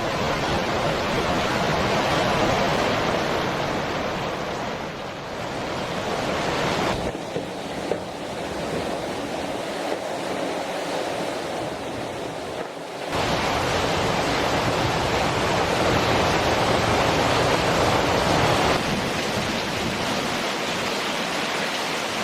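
Steady rushing hiss of heavy rain and running rainwater, with no pitch to it. Its character changes abruptly twice, about a third of the way in and again just past halfway.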